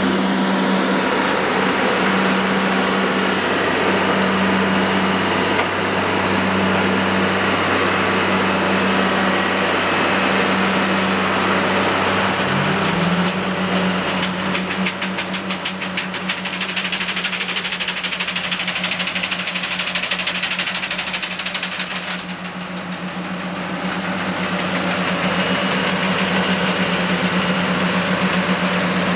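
Over-the-row olive harvester's engine running steadily as the machine straddles and shakes a row of hedgerow olive trees; its hum rises slightly in pitch about halfway through, followed by a few seconds of rapid, regular clatter.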